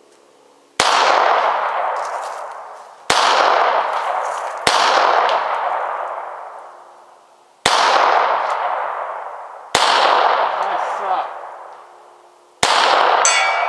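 Six handgun shots, a second and a half to three seconds apart, each followed by a long echo decaying through the woods.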